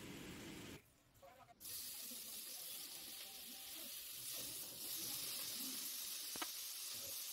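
Raw bacon strips sizzling in a hot oiled frying pan, a steady hiss that starts after a short lull about a second and a half in. Before the lull there is brief low rustling.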